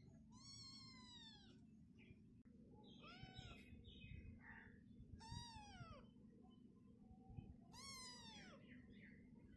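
Young kitten meowing: four faint, thin meows about two seconds apart, each rising then falling in pitch.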